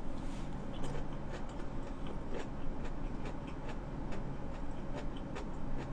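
A mouthful of sushi being chewed close to the microphone, with soft, irregular wet clicks from the mouth, several a second.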